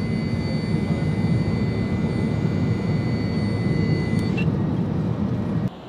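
Heavy rumble of an E-4B (Boeing 747-200) and its four turbofan engines, heard from inside the flight deck, with a steady high whine over it that stops about four seconds in. The sound cuts off sharply near the end.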